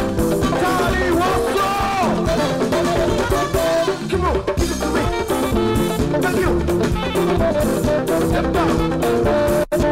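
Live band music: a horn section of saxophone and trumpet playing over drums and guitar, in a highlife/Afrobeat style. The sound cuts out for an instant near the end.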